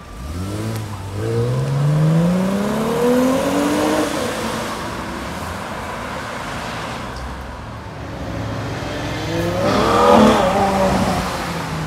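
Mercedes-Benz SL convertible accelerating away, its engine pitch rising steadily for about four seconds. About ten seconds in, a white Ferrari 812 Superfast's V12 revs up and falls back as it pulls off, the loudest moment.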